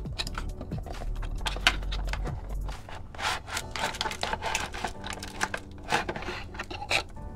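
Product packaging being handled: a run of rubs, scrapes and crinkles, busier in the second half.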